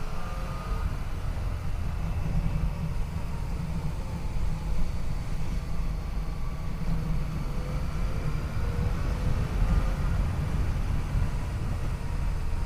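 Yamaha FJ-09's 847 cc three-cylinder engine under way, its note slowly falling, rising and falling again with the throttle. A heavy, steady rumble of wind on the microphone lies under it.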